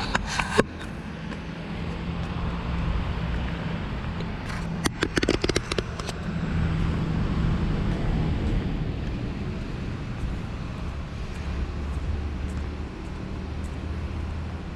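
Clicks and rattles of a GoPro Shorty extension grip being handled and its length adjusted, picked up by the camera's built-in microphone: a short burst right at the start and a denser cluster about five seconds in. Beneath them runs a steady low background rumble.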